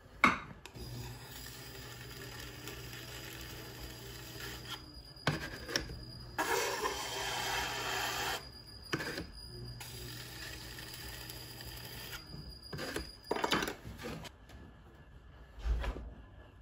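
Electric potter's wheel running with a steady hum while a hand tool is worked against the base of a freshly thrown clay pot, with a louder stretch of scraping in the middle. The motor stops about twelve seconds in, and a few knocks follow.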